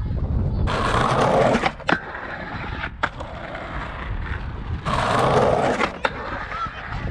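Skateboard wheels rumbling over rough concrete, with two grinds of about a second each along an edge. Each grind ends in a sharp clack of the board landing.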